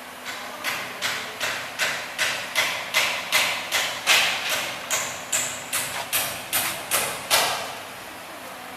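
A steady series of sharp knocks, close to three a second, that stops about seven seconds in.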